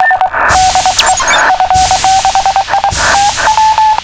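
Electronic signal tones beeping rapidly, switching between a lower and a higher pitch, broken by short bursts of static hiss, like a broadcast data or alert transmission.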